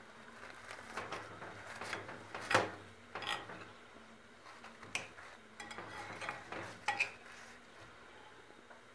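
Kitchen utensils and dishes clinking and knocking: about eight separate light knocks, some with a brief metallic ring, the loudest about two and a half seconds in and again near seven seconds, over a faint steady hum.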